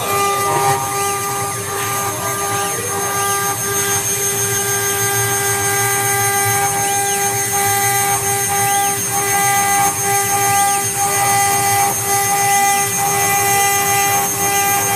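CNC router spindle carving a stone slab under water coolant: a steady whine over a grinding hiss, with brief rising-and-falling swells every second or two as the bit cuts.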